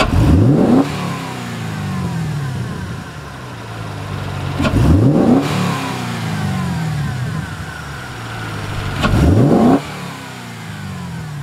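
2010 Chevrolet Camaro SS's 6.2-litre V8 with a Borla exhaust, revved three times from idle: each throttle blip climbs fast and falls back slowly to idle, about four and a half seconds apart.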